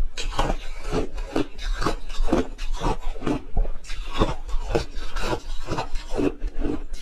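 Ice being chewed close to the microphone: a steady run of crisp crunches, two or three a second.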